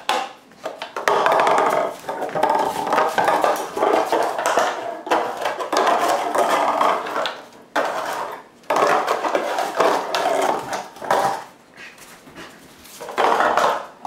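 Parmesan cheese container being chewed and shoved about on a hard floor by a Keeshond puppy: crinkly clattering in about five spells of one to three seconds, with short pauses between.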